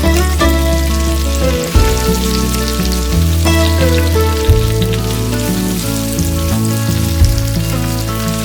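Food sizzling and crackling as it fries in hot fat in a pan, with background music that has a slow-changing bass line.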